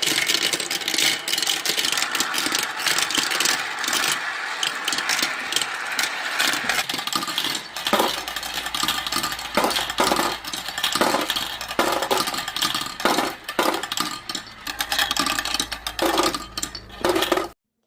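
Marbles rolling and clattering down a toy marble-run track, a steady rumble of rolling broken by many quick clicks and knocks as they hit track pieces and each other. The sound cuts off suddenly near the end.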